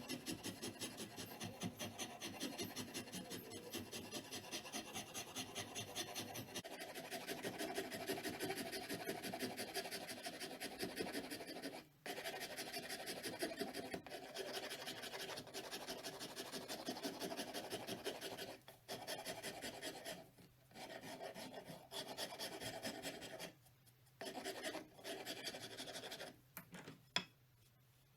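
Hand file or rasp worked in rapid, even back-and-forth strokes, in several runs broken by short pauses.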